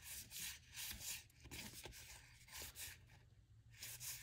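Trading cards sliding over one another as a stack is flipped through by hand: a string of faint, soft swishes, about two a second.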